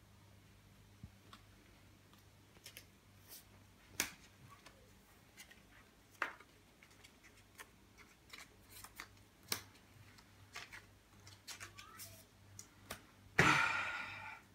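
Plastic card sleeves being handled as trading cards are slid into them: scattered small clicks and rustles, with a louder burst of noise about a second before the end.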